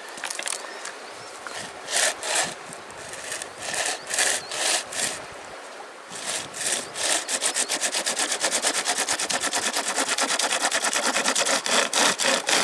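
Hand chain saw (a saw chain with two pull handles) cutting through a log. A few separate strokes at first, then from about halfway a fast, even run of back-and-forth strokes.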